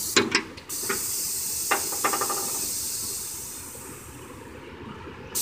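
Compressed air hissing out of the pneumatic control valves of a home-built snow plow lift and tilt as the air cylinder moves the plow, the hiss slowly fading over a few seconds. A few sharp knocks come near the start.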